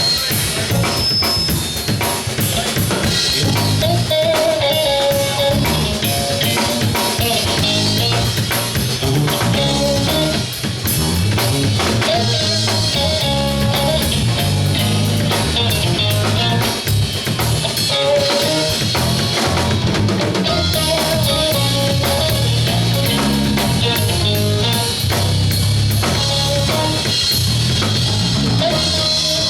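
Live soul band playing an instrumental groove, with the drum kit (kick, snare and rimshots) and bass guitar prominent and a short melodic phrase recurring every few seconds.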